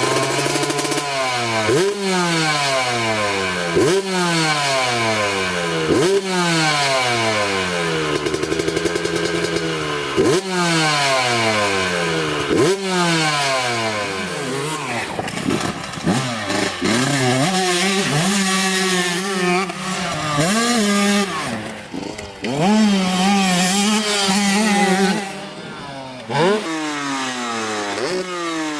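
Two-stroke dirt bike engine revving hard over and over: each sharp rev climbs quickly, then the pitch slowly falls away before the next one. In the second half the revs come more unevenly, with a couple of short dips.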